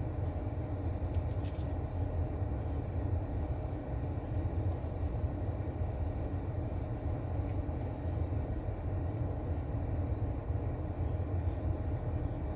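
Steady low rumble with a faint hum, even in level throughout, like a running engine or machine.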